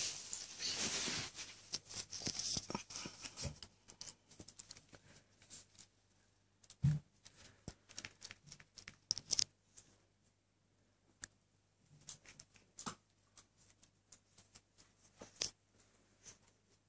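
Quiet scuffling and rustling of Alaskan Malamute puppies moving about on a shaggy rug: a steadier rustle for the first few seconds, then scattered soft taps and clicks with quiet gaps between.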